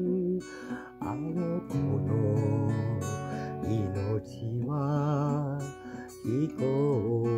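Acoustic guitar playing chords after the last sung line of the song, with notes ringing on between strokes.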